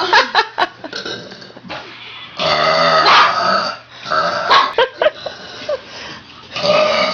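A girl belching loudly in a run of separate burps. A few short ones come at the start, a long drawn-out one about two and a half seconds in, more short ones a little later, and another begins near the end.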